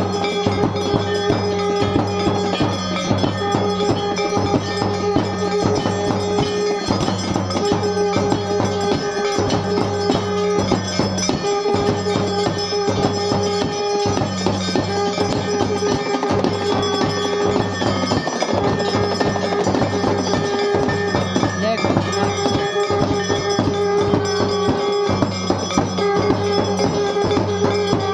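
Music of a Hindu aarti: bells rung rapidly together with drumming, over a held tone that breaks off and returns about every two seconds.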